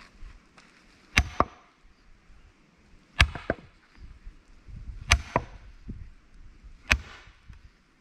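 Steel splitting wedge (a Husqvarna twisted wedge) being driven into a log round by hammer blows: four sharp metallic strikes about two seconds apart, each with a short ring, the first followed by a lighter second knock.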